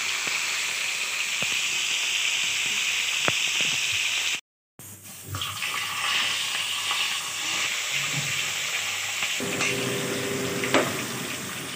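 Rohu fish pieces sizzling steadily as they fry in hot oil in a metal kadai, with a few light clicks of the metal spatula against the pan. The sound drops out for a moment about four and a half seconds in.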